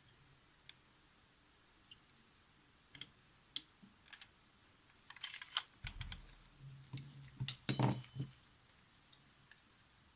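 Small tools clicking and scraping against the parts of a Polaroid SX-70 camera as they are prised up. The clicks come one at a time for the first few seconds, then in a busier cluster from about five to eight seconds in.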